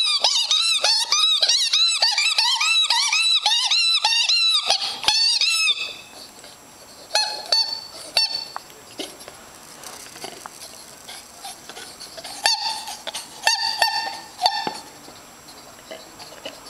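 A dog chewing a squeaky toy ball, making it squeak over and over. For about the first six seconds there are rapid squeaks, roughly three a second, each rising and falling in pitch. After that come a few short runs of squeaks with pauses between them.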